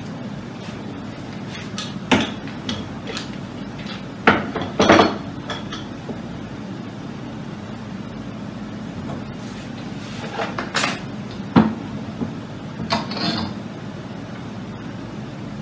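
Wooden clamps and brace stock knocking and clicking against the wood as clamps are set on a guitar plate's braces: scattered sharp knocks in small clusters, the loudest a little before the middle and again past it, over a steady low hum.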